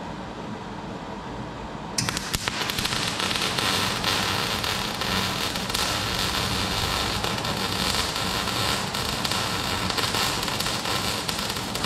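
MIG welder arc crackling steadily as it welds steel, starting suddenly about two seconds in.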